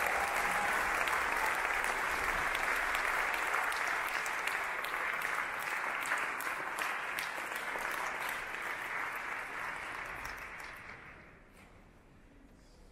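Audience applauding, a dense crowd of clapping that thins out and dies away about ten seconds in, leaving a quiet hall.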